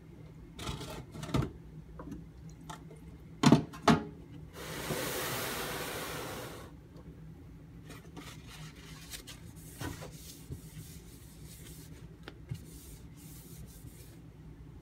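Handling noises at a knife-sharpening bench with water stones: two sharp knocks about half a second apart, then a steady hiss lasting about two seconds, followed by faint scrapes and light taps.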